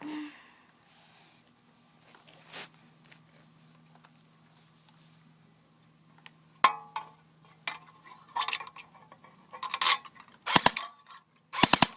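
Airsoft M4 firing at a metal can, BBs clinking off the metal. After a few quiet seconds come single shots, then quick bursts of three to five shots near the end.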